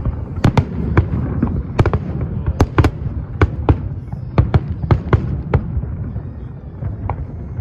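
Fireworks display: rapid sharp bangs of bursting shells, two or three a second, over a steady low rumble, the bangs thinning out near the end.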